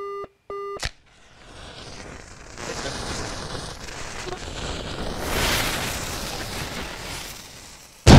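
Intro sound effects: two short electronic countdown beeps and a sharp click, then a noisy whooshing swell that builds for several seconds and fades, cut off by a sudden loud boom at the very end.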